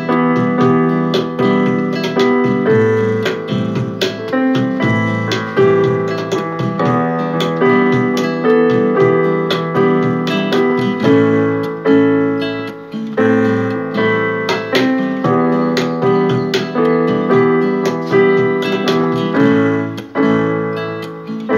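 Keyboard played with a piano sound: a continuous piece with low notes under a higher melody, new notes struck in a steady flow.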